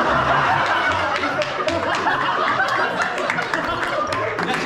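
A group of young men laughing loudly together, with scattered hand claps.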